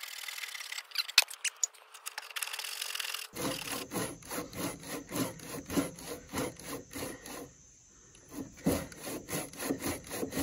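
Handsaw cutting across a timber beam at a tenon: quick, even back-and-forth strokes, starting about three seconds in, with a short pause near the end before the sawing goes on.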